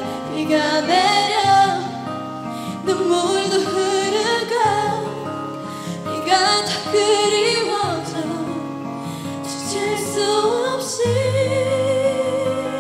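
Female pop singer singing a K-pop ballad into a handheld microphone over a backing track, holding a long note near the end.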